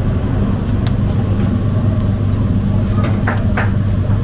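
Flat metal kebab skewers clinking against the charcoal grill as they are turned, once about a second in and a few times near the end, over a steady low mechanical drone.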